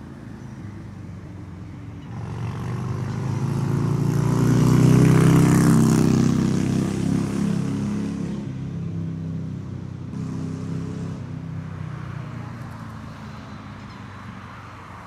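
A motor vehicle passing close by: its engine note builds, peaks about five seconds in, and slowly fades away.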